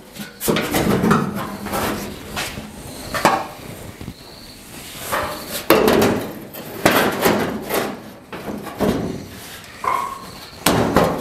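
Old sheet-steel hood panel of a 1939 Hudson truck being set on the front of the truck and shoved into position: a series of clunks and knocks at uneven intervals, metal on metal.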